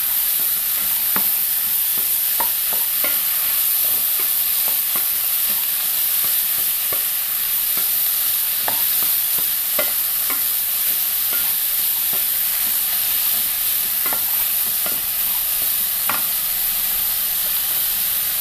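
Chopped chayote (chow chow) frying in hot oil in a non-stick pan with a steady sizzle, stirred with a wooden spatula that scrapes and taps against the pan every second or so.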